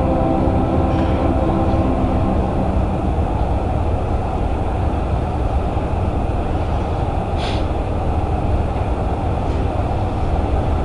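String orchestra playing: a held chord fades out about two seconds in, and the strings go on in a dense, low, rumbling texture without clear notes. A short click comes about seven and a half seconds in.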